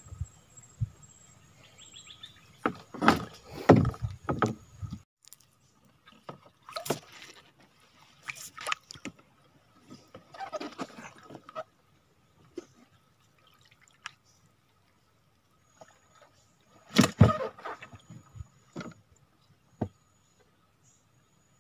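Paddle strokes in the water as a small sampan is paddled along: irregular splashes and gurgles every second or two, with a quiet stretch in the middle and the loudest stroke near the end.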